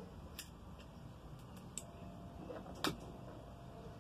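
A few faint, sharp clicks, the loudest about three-quarters through, from the bench-test wiring being connected to power up a VW MK3 VR6 instrument cluster. A faint steady tone comes in about halfway.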